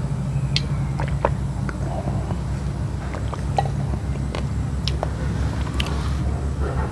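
Raw, uncooked basmati and glutinous rice grains crunching between the teeth as they are chewed, in scattered sharp crackles over a steady low rumble.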